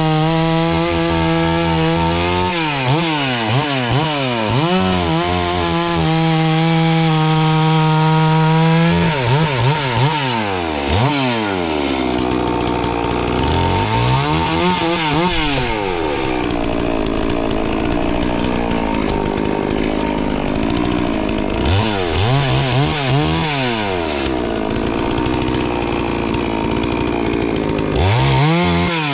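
A 72cc two-stroke FarmMac F380W chainsaw cutting wood at high revs. It holds a steady high pitch for a few seconds at a time, and its revs repeatedly drop away and climb back as the throttle is eased and reopened.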